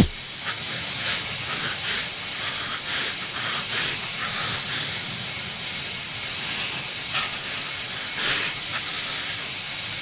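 Steady hiss with irregular, brief louder puffs of hiss every second or so, the most prominent one about eight seconds in.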